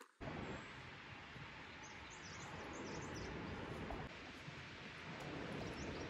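Steady rushing outdoor background noise, with a few faint, high bird chirps about two to three and a half seconds in and again near the end.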